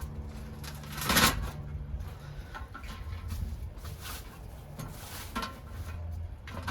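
Metal light-fixture mounting bracket being worked loose from the ceiling box: a loud scrape about a second in, then small clicks and taps of the screws and metal parts being handled.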